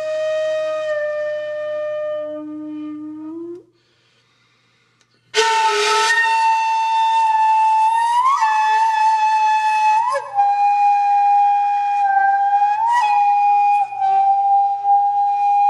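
Solo flute music: long held notes, several of them sliding up in pitch as they begin. About four seconds in, the playing pauses for a second and a half before a higher phrase starts.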